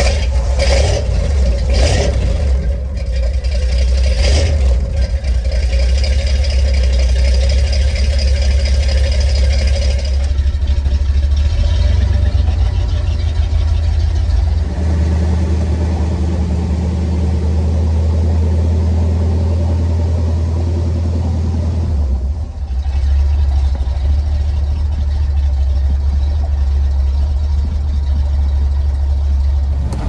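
A 1970s Ford pickup's engine running just after being started, with a few short sharp blips in the first few seconds, then a steady low running sound whose tone shifts a few times.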